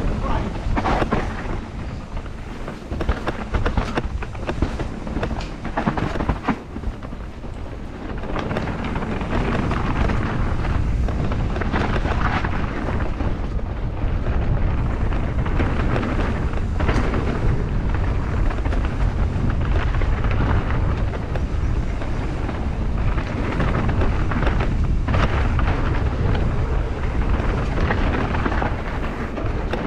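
Mountain bike being ridden over a rough trail: steady rumble and wind on the camera's microphone, with frequent knocks and rattles from the bike. The rumble gets louder about eight seconds in, as the speed picks up.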